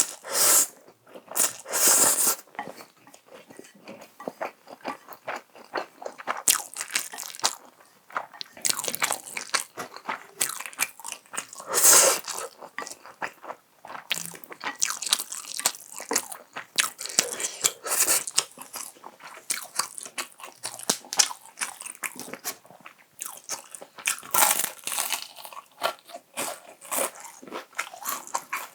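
Close-up crunching and chewing of crispy fried chicken, Kyochon Honey Combo, with louder crunchy bites every few seconds and steady crackly chewing between them.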